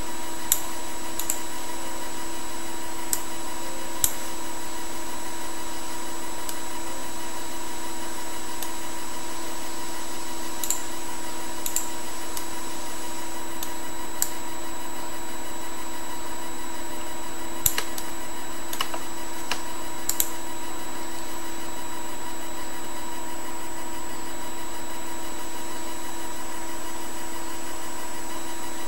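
Steady electrical-sounding hum with several fixed tones, and about ten scattered sharp clicks of a computer mouse in the first two-thirds, as on-screen sliders are adjusted.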